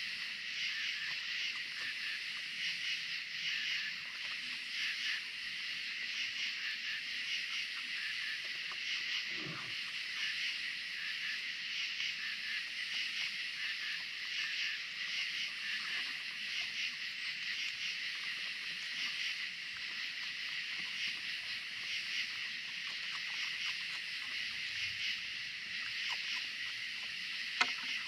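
Steady, high-pitched chorus of night insects, a continuous shrill with a fine pulsing texture. A soft knock comes about a third of the way through and a sharp click near the end.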